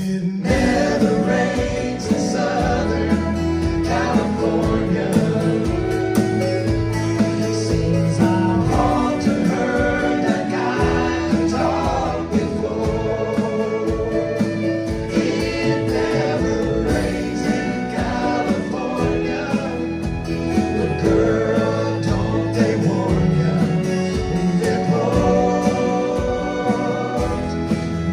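Small band playing and singing a soft-rock song: male vocals over guitar, fiddle and drums.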